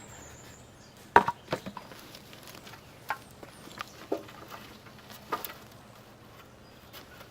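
Scattered knocks and taps as a one-gallon pot of potting soil is dumped out and the soil and potatoes are handled. The loudest knock comes about a second in, followed by several lighter ones.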